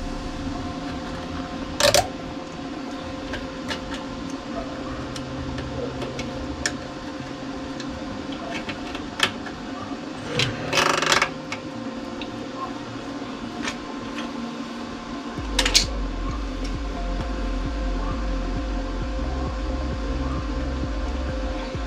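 Steady hum under a few sharp clicks and a short clatter about ten to eleven seconds in: hands and a screwdriver handling wiring and parts under a car.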